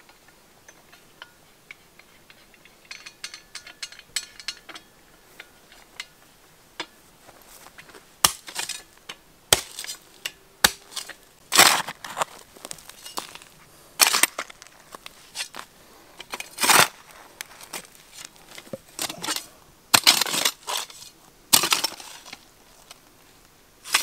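A short-handled mattock digging stony, dry soil: sharp metal strikes into earth and stone, each followed by scraping and loose soil and gravel sliding. The digging starts about eight seconds in and goes on in irregular strokes.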